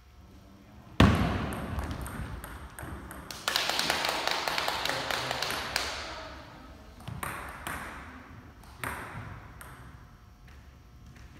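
Table tennis ball pinging off paddles and the table in a rally, sharp repeated clicks with some echo, plus a louder stretch of noise in the middle.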